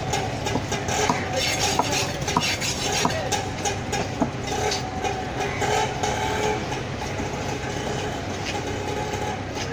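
Long knife cutting fish on a wet wooden chopping block: a run of quick taps and scrapes as the blade goes through flesh and hits the wood, busiest in the first half. Underneath is a steady background rumble.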